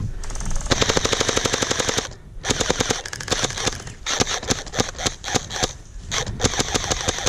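Gel blasters firing on full auto: a long burst of rapid clicking shots to about two seconds in, then several shorter bursts with brief pauses.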